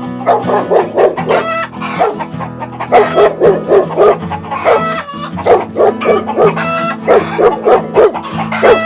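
A dog barking in quick, repeated short barks over steady background music.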